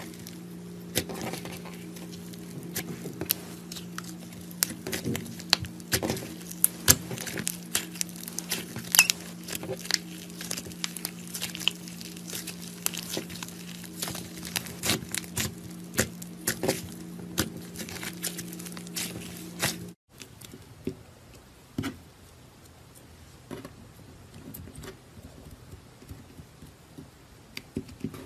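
Slime being squeezed, poked and stretched by hand, with many sharp pops and crackles from air pockets in the slime, over a steady low hum. The hum stops suddenly about two-thirds of the way through, and the pops after it are quieter and sparser.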